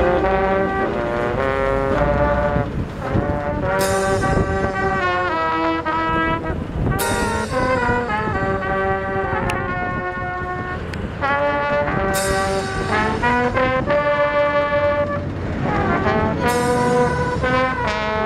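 A school drum and bugle band playing a slow piece on brass bugles with flutes, in long held notes, with a cymbal crash every few seconds.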